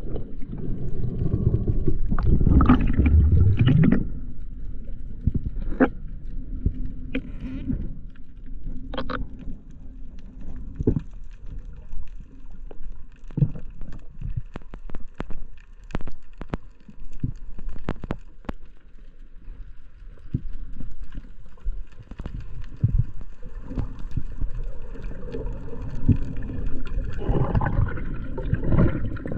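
Muffled underwater sound: a loud low rush of bubbles and water in the first four seconds as the camera goes under. After that, a quieter low wash of water with many scattered sharp clicks.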